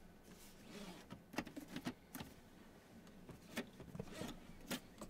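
Tesla center console 2.0's sliding lid being worked by hand: about half a dozen light clicks and knocks spread over a few seconds as the lid is slid and pushed shut.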